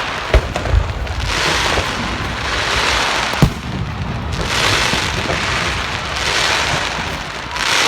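Fireworks going off: a few sharp bangs, two close together near the start and one about halfway through, between stretches of hissing crackle.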